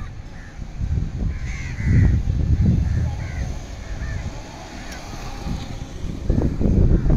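Crows cawing several times, about one and a half to three and a half seconds in, over a low rumble of wind on the microphone. Near the end a small white Suzuki Wagon R Stingray passes close by and the low rumble swells.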